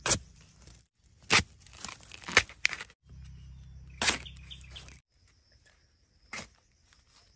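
Sharp chops of a long-handled flat digging blade striking into wild bamboo shoots at their base, about six single strikes a second or two apart. The loudest comes about two and a half seconds in.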